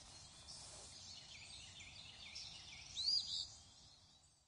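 Wild songbirds chirping and singing: a scatter of short notes over a faint outdoor hiss, the loudest a rising-and-falling note about three seconds in. The sound fades out near the end.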